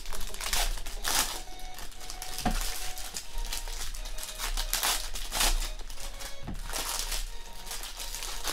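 Silver foil wrapper of a Prizm football card pack crinkling in irregular bursts as hands tear it open and pull it apart, with faint background music.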